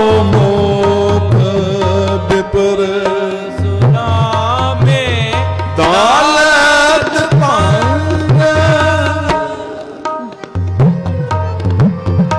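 Sikh Gurbani kirtan music: tabla playing a steady rhythm under a held melody whose notes slide between pitches. It thins out and gets quieter near the end.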